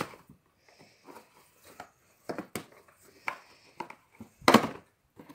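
Paper and cardboard packaging being handled and opened by hand: irregular rustles and crackles, with the loudest burst about four and a half seconds in.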